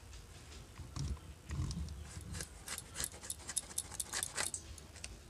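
A knife cutting into a green capsicum held in the hands, giving a quick run of sharp, crisp clicks from about two seconds in, after a few dull handling thumps about a second in.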